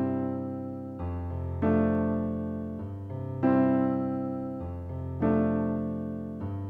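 Slow background piano music: gentle chords struck about every second and a half to two seconds, each left to ring and fade, over changing bass notes.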